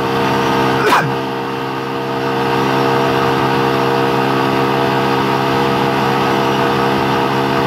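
Yamaha YBR 125G's single-cylinder four-stroke engine running steadily at cruising speed, over a hiss of wind and road noise. A short sharp sound comes about a second in.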